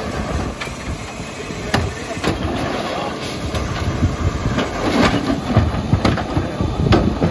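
Mack LEU rear-loader garbage truck's diesel engine running, with a handful of sharp metallic clanks and bangs from the loading end. The engine grows louder in the second half.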